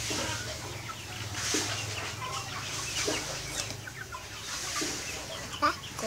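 Young chickens clucking softly and sporadically while feeding, with a sharper, louder call near the end.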